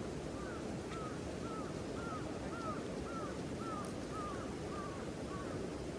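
A bird calling a run of about ten short, arched notes, roughly two a second, over a steady background of water and wind noise.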